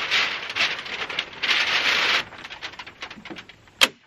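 Tyvek house wrap rustling and crackling as the sheet is handled and lifted, in heavy surges for the first two seconds and then in smaller crackles. A single sharp snap near the end is the loudest moment.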